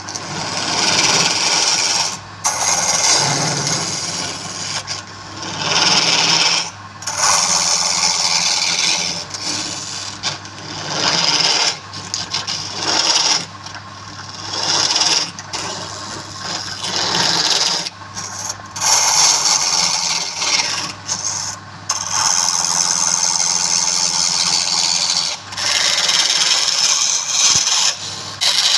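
Wood being abraded by a motor-driven tool: repeated rasping passes of one to three seconds each with short breaks, over a steady low motor hum.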